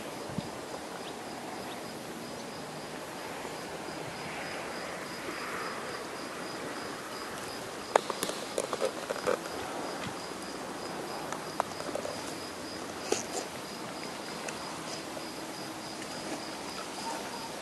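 An insect chirping in a high, even pulse about three times a second over a soft, steady hiss of shallow seawater. A few small splashes and clicks come around the middle.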